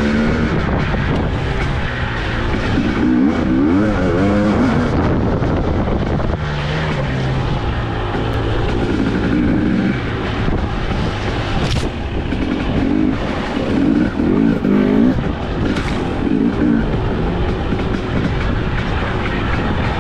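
Engine of a 2022 Husqvarna TE250i, a fuel-injected single-cylinder two-stroke dirt bike, revving up and down as the bike is ridden along a trail. Two sharp knocks come near the middle and about three-quarters through.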